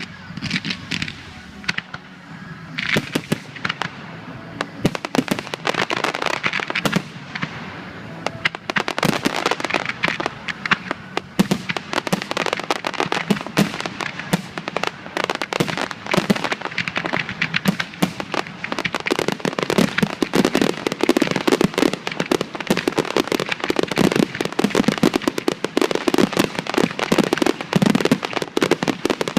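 Fireworks display: a rapid, continuous crackle of many small bursts, sparse at first and turning into a dense, unbroken barrage after several seconds.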